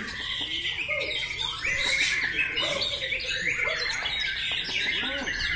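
Several caged white-rumped shamas (murai batu) singing at once in a contest round: a dense, unbroken mix of quick whistles, chirps and trills.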